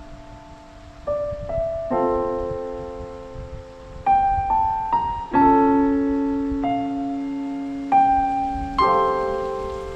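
Slow, gentle piano music: single notes and chords struck a few seconds apart, each left to ring and fade.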